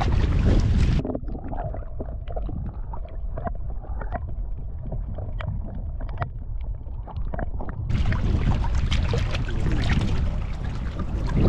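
Strong wind buffeting the microphone: a heavy, steady low rumble. From about one to eight seconds in the sound turns duller, with scattered sharp clicks.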